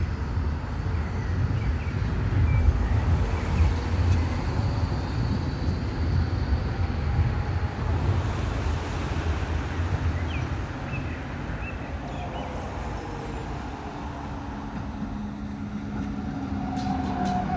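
A vehicle's steady low rumble, with a faint steady tone coming in near the end.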